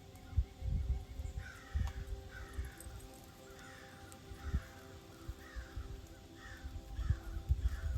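Crow cawing: a long run of harsh caws, about two a second, starting about a second and a half in, over faint background music and some low thumps.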